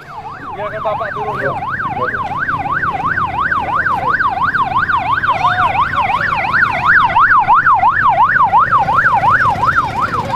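Police escort siren on a fast yelp, its pitch sweeping up and down about three times a second and growing louder over the first two seconds, over the low rumble of motorcycle engines.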